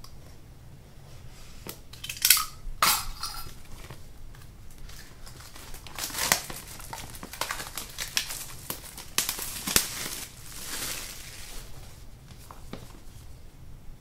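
Cardboard shipping box and a glossy retail box rubbing and scraping as the retail box is pulled out by hand, with rustling of the packaging in uneven bursts.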